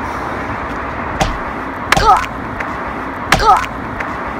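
Mock martial-arts strikes: a sharp smack about a second in, then two more, each of the last two followed at once by a short shout. A steady background noise runs underneath.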